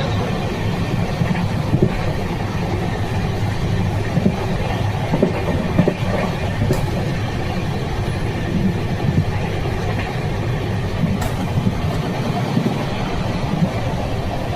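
A moving train running along the track: a steady rumble, with a few sharp clicks.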